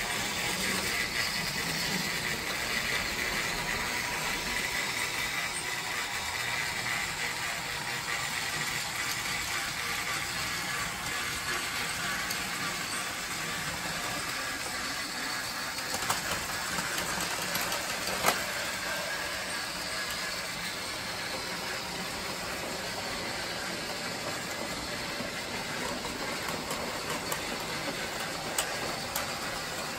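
Battery-powered TrackMaster Duck toy train engine running along plastic track: a steady whir of its small motor and gears. There are two sharp clicks a couple of seconds apart just past halfway.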